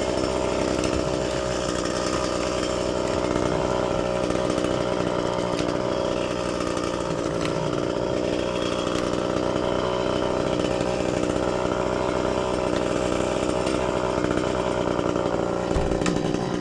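Chainsaw running at steady high speed, cutting through wood.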